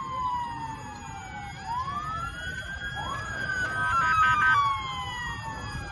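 Several emergency-vehicle sirens wailing at once, their pitches rising and falling across each other. A faster warbling siren is loudest about four seconds in, over a low background noise.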